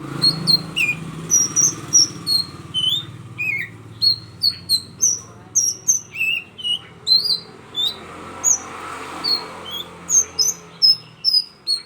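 Oriental magpie-robin singing: a continuous run of short, varied whistles and chirps, several notes a second, with quick rising and falling sweeps.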